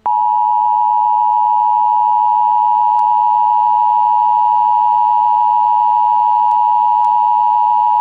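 Emergency Alert System attention signal: one loud, steady electronic tone that begins abruptly and holds without change, then cuts off suddenly near the end, announcing the emergency message about to follow.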